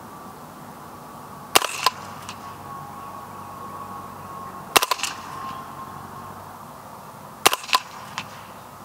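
Integrally suppressed 9mm carbine (Spikes Tactical Brown Recluse) fired three times, about three seconds apart. Each shot is a flat, sharp crack followed quickly by a second, quieter click, with a fainter tick after some shots.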